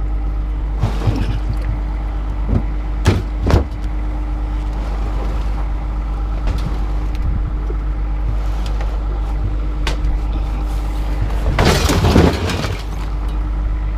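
Scrap metal clanking as it is thrown off a truck, with a couple of sharp clanks about three seconds in and a longer clatter near the end, over a vehicle engine running steadily.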